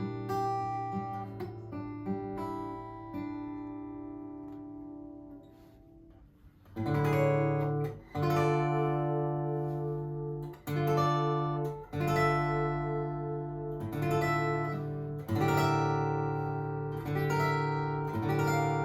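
Ayers Lueez custom all-solid acoustic guitar, spruce top with koa back and sides, played solo. Picked notes ring and slowly fade for the first few seconds, then firm strummed chords start about seven seconds in.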